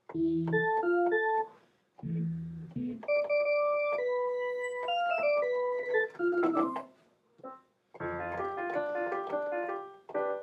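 Keyboard-like software instrument notes from Reason, played from Maschine over MIDI. There are short melodic phrases with low bass notes, then a long descending run of held notes, then denser layered chords with bass near the end.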